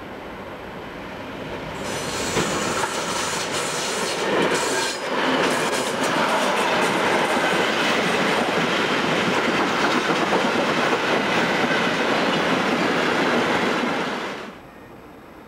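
A freight train passes close by: a 'Ludmilla' diesel locomotive of the DB class 232 family, then a long rake of covered hopper wagons whose wheels clatter steadily over the rail joints. The sound swells about two seconds in and is loudest as the locomotive goes by. The wagons' rumble and clatter stay loud until they cut off suddenly near the end.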